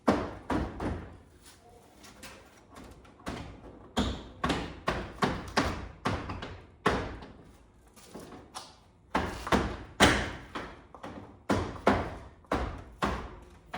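An irregular series of sharp knocks and thumps, about twenty in all, the loudest about ten seconds in, as parts are fitted back onto a car's body during reassembly.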